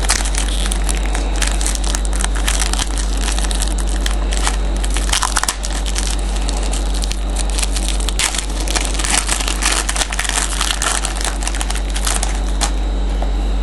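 Trading card pack wrapper crinkling and crackling as it is handled and opened, a dense run of crackles over a steady hum.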